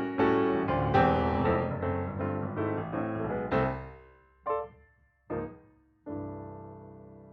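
Background piano music: a run of notes, then a few separate chords, the last held and slowly fading away as the piece ends.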